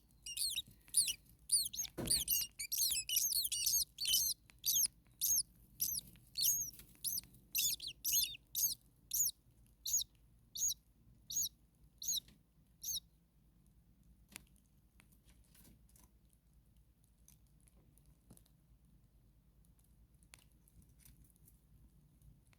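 Starlings calling: a rapid series of short, high, arching chirps, about two a second, that thin out and stop about thirteen seconds in. After that only a few faint ticks and rustles remain.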